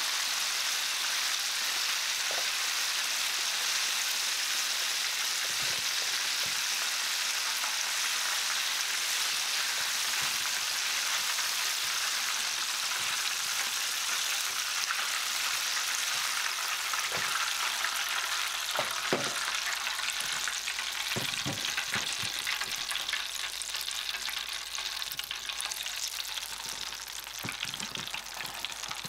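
Chicken karaage deep-frying in a pan of oil: a steady dense sizzle that thins in the second half into scattered crackles and pops, with a few light knocks.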